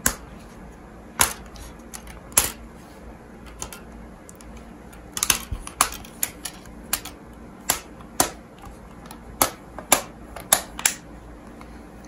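Snap-fit clips of a portable monitor's housing clicking into place as the frame is pressed back together, about a dozen sharp clicks at irregular intervals, some in quick pairs.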